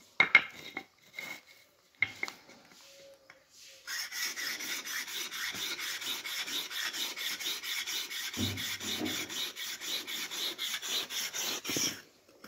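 Chisel blade being sharpened on a sharpening stone, rubbed back and forth in quick, even scraping strokes about five a second, after a few sharp knocks in the first couple of seconds. The rasping strokes stop abruptly near the end.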